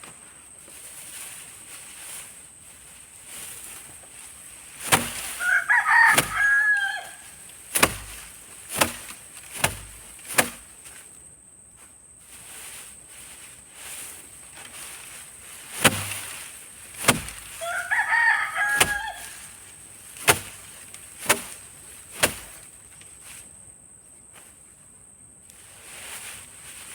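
A rooster crowing twice, about twelve seconds apart, amid a string of sharp knocks.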